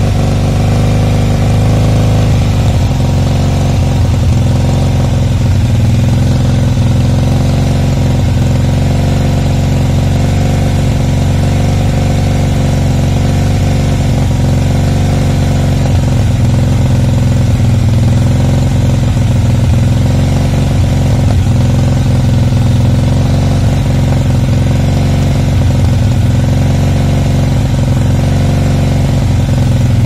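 2007 Harley-Davidson Softail Custom's Twin Cam 96 V-twin idling steadily while Seafoam is drawn into the intake through a vacuum-line hose.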